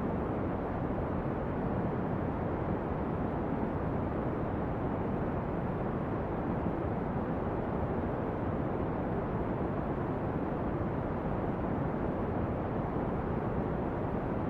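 Steady brown noise: an even, deep rushing hiss, heaviest in the bass and thinning out toward the treble, with no crackles or changes.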